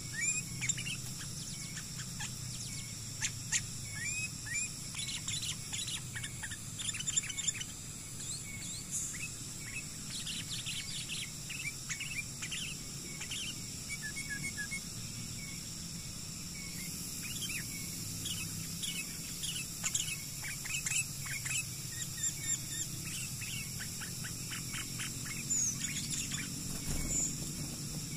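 Sooty-headed bulbuls (kutilang) calling: many short, sharp chirps and quick chattering runs of notes, over a steady high-pitched hum.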